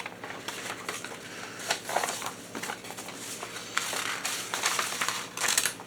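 Paper instruction sheet of a plastic model kit rustling and crinkling as it is handled, in irregular rustles that grow louder near the end.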